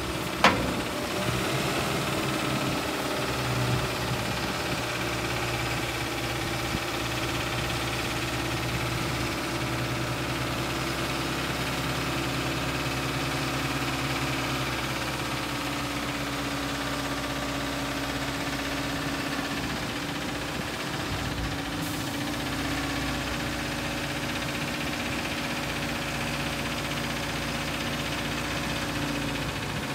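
Avia hook-lift truck's diesel engine running steadily while its hydraulic hook arm pulls a loaded steel roll-off container up onto the truck. A single sharp knock comes about half a second in.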